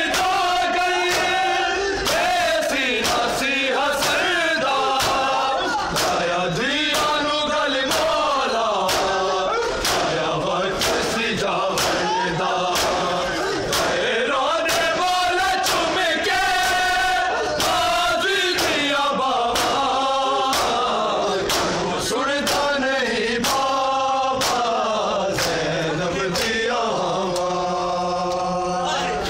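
Men chanting a noha in unison, with the sharp slaps of matam (open hands striking bare chests in Shia mourning) landing in time with it, about once a second.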